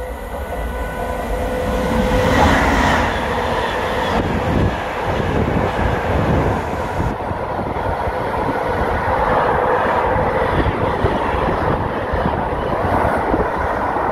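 Class 88 locomotive and its long train of container wagons passing at speed close by. Wheels rumble and clatter on the rails, building over the first two seconds or so and then holding steady as the wagons go by.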